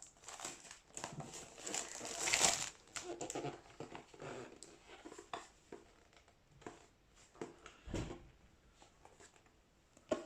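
A phone's retail box being handled and opened: irregular plastic-wrap crinkling and cardboard rustling with small taps and clicks, busiest in the first few seconds, then a dull thump about eight seconds in.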